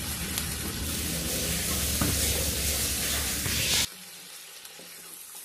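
Water poured into a hot iron wok of frying potatoes and drumstick stalks, splashing and sizzling as it meets the hot oil, with a wooden spatula stirring. The sound cuts off suddenly about four seconds in, leaving only a faint hush.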